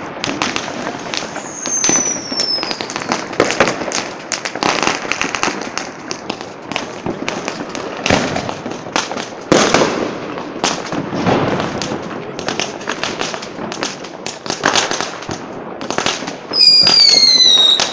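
Fireworks and firecrackers going off all around: a dense run of bangs and crackles. A whistling firework falls in pitch about two seconds in, and a louder whistling one, also falling, screams near the end.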